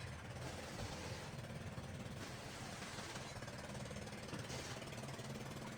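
An engine or machine running steadily with a fast, even rattling pulse.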